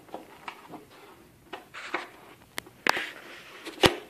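Light clicks and knocks from handling stiff white plastic armor parts and picking up a screwdriver off a workbench, with one sharper, louder click near the end.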